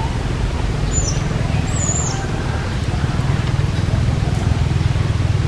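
Steady low rumble of outdoor background noise, with two brief high chirps about one and two seconds in.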